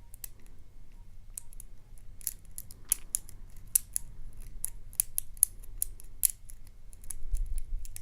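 Lock pick working the pins of a six-pin Yale euro cylinder: irregular light metallic clicks as the pick lifts and sets pin stacks under tension. A low handling rumble comes in near the end.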